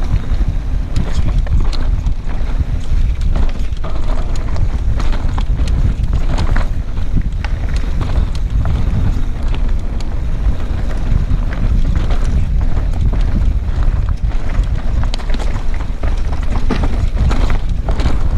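Mountain bike descending a loose, stony trail at speed: heavy wind buffeting on the microphone, with tyres crunching over gravel and frequent sharp clicks and rattles of stones and bike parts.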